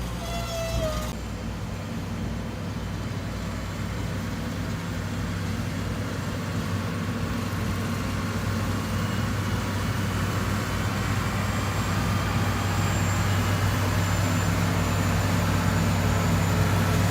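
Heavy diesel engine of earthmoving equipment running steadily, slowly growing louder, with a brief high squeal near the start.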